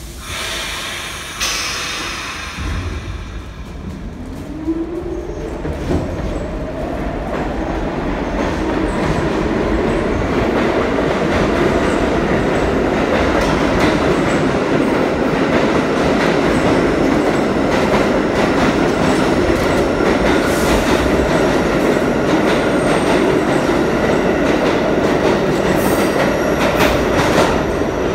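New York City Subway A train pulling out of the station. A motor whine rises in pitch as it picks up speed over the first several seconds, then the wheels keep up a loud, steady rumble and clatter on the rails as the cars pass.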